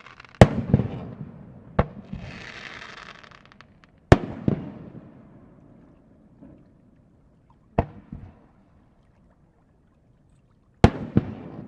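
Aerial fireworks shells bursting: five sharp booms a few seconds apart, each trailing off in a rolling rumble, with a spell of hissing crackle about two seconds in.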